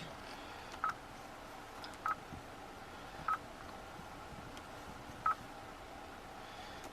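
Four short, single-pitched key beeps from the 2011 Hyundai Elantra's touchscreen head unit as its buttons are pressed, spaced one to two seconds apart.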